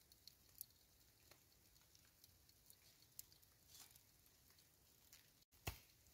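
Faint crackling from wood burning in a small OneTigris camp stove: sparse, irregular ticks and pops, with one louder click near the end.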